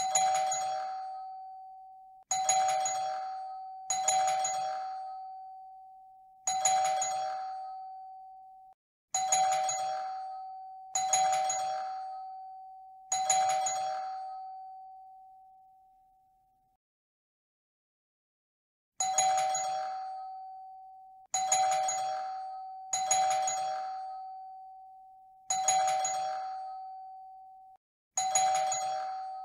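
Classic doorbell chime rung over and over, about a dozen rings, each starting sharply and fading out over two seconds or so. The rings come every two seconds or so, with a silent gap of about two seconds midway.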